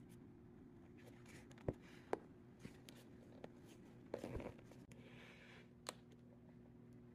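Quiet room with a low steady hum, broken by a few sharp clicks or taps and a brief rustle about four seconds in.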